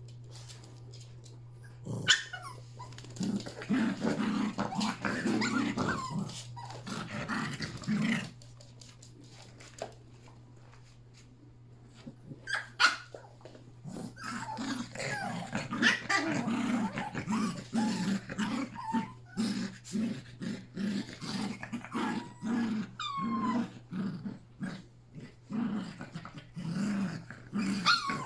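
Yorkshire terriers play-fighting, with a run of short growls, a brief lull in the middle, then more growling with a few high yips.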